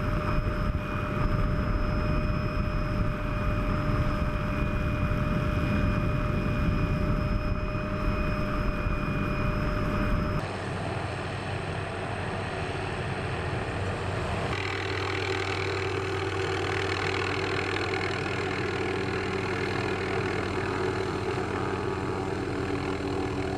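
Light helicopter hovering. For the first ten seconds it is heard up close with a heavy rumble and a steady high whine. After an abrupt change it settles into a steady lower hum of the rotor and engine.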